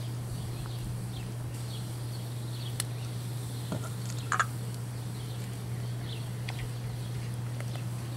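Pork sirloins searing on the hot grate of a hardwood-and-charcoal kettle grill: a steady faint sizzle, with a couple of sharp pops from the fire, the louder one about four and a half seconds in. Faint bird chirps are scattered through it.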